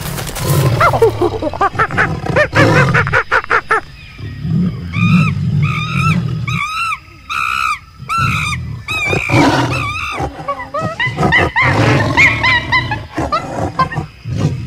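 Wild animal calls: a tiger growling and roaring, with a run of short, repeated, arching high calls in the middle.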